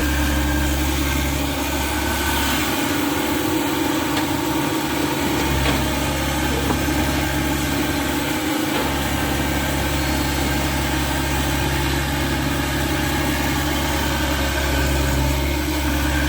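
Excavator's diesel engine running steadily with a continuous low hum.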